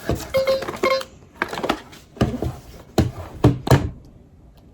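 Fingers tapping and pressing on a LeapFrog 100 Animals talking book's page, a handful of short dull knocks after a brief snatch of the book's electronic tune in the first second. The page is defective and no longer triggers its sounds.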